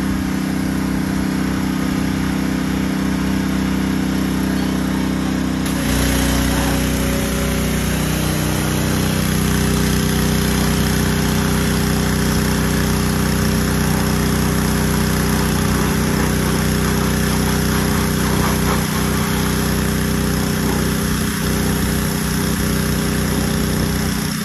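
Engine-driven pressure washer running steadily. About six seconds in its note changes and a hiss of spraying water joins in.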